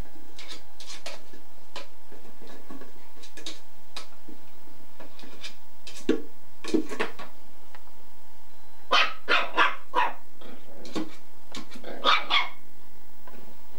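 Eight-week-old puppy barking in short, high yaps while playing with a plush toy. There are two or three yaps about six seconds in, a quick run of four around nine to ten seconds, and two more near the end. Fainter knocks and scuffles come in the first few seconds.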